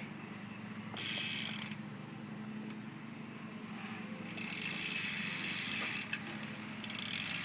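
Rear Ezra cassette hub of a BMX bike ratcheting as the wheel spins freely: a fast, buzzing click of the pawls. It comes in spells, briefly about a second in, then longer from about halfway through and again near the end. The hub has been greased a little by its owner.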